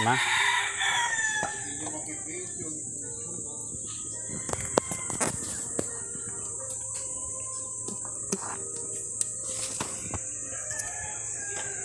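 A rooster crowing, one long call in the first second and a half. Behind it a steady high-pitched buzz and scattered sharp clicks.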